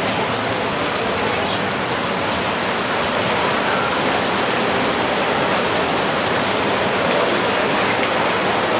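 Steady rushing of water in a flooded street.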